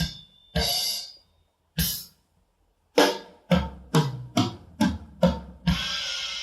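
Drum kit played freely: a few spaced strikes, then a run of about six drum hits a bit over two a second, ending on a cymbal crash that rings on. The gaps between the early hits drop to near silence, as left by noise reduction.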